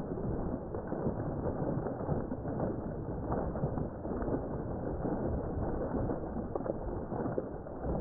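A stream of water pouring steadily into a pond, splashing continuously on the surface.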